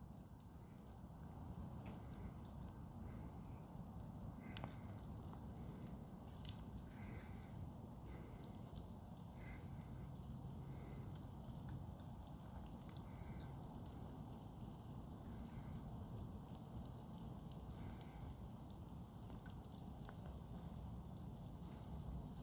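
Wood campfire crackling, with scattered sharp pops over a low steady rumble. Small birds chirp now and then, and one gives a short trill partway through.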